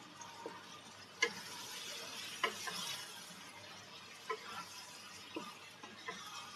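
Light, scattered clinks and knocks of kitchenware being handled at a kitchen sink, about five in all, with a soft hiss between about one and three seconds in.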